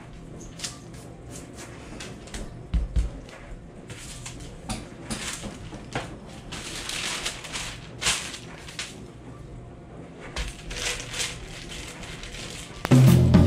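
Parchment paper rustling and crinkling as a sheet is lifted and handled, with scattered light clicks and knocks of kitchen things on a counter and a couple of dull thumps about three seconds in. Music comes in just before the end.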